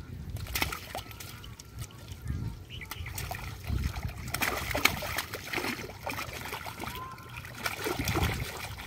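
Hands splashing and squelching in shallow muddy water and thick mud, in irregular splashes and slops.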